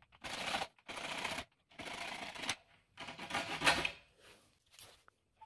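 Hacksaw blade cutting through the brittle plastic end cap of a T8 LED tube, in four sawing strokes about a second apart, stopping about four seconds in.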